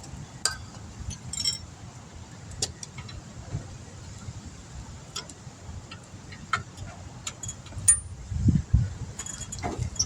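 Scattered metal clicks and clinks of hand tools working on a brake caliper, trying to free a seized slide pin, with a couple of dull knocks near the end.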